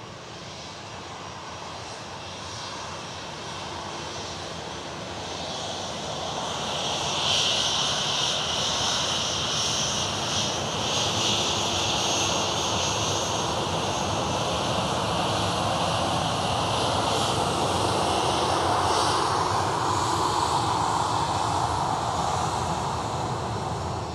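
Boeing 737-800's CFM56-7B turbofan engines running close by as the jet taxis past. The sound grows louder over the first seven seconds, then holds steady as a high whine over a deep rumble.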